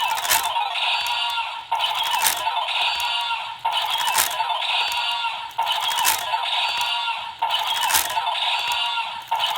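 Electronic music and sound effects from the DX Fever Slot Raise Buckle toy's small built-in speaker, with no bass. The same short jingle loops about every two seconds.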